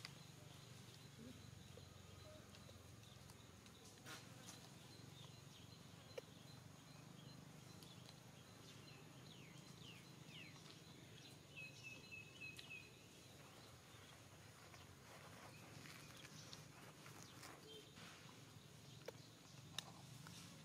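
Near silence: faint outdoor ambience with a thin, steady high insect trill, a few faint high chirps midway and scattered soft ticks.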